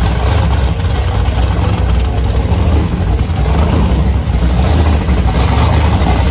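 Engine of a gasser-style hot rod running loudly and steadily, its sound strongest in the low notes.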